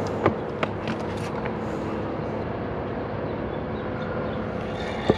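A steady mechanical hum with background noise, a few light clicks in the first second, and a sharp knock near the end.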